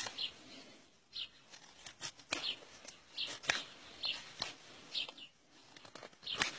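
A knife blade cutting shavings from a thin wooden stick in short strokes: a dozen or so crisp scrapes, about two a second, irregularly spaced.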